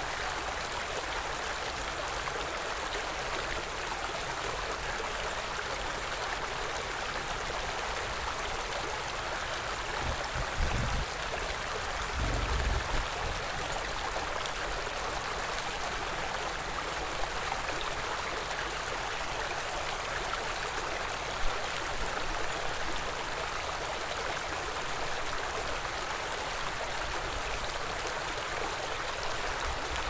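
Forest stream flowing: a steady rush of running water. Two brief low rumbles come near the middle, and a single sharp tap about two-thirds of the way through.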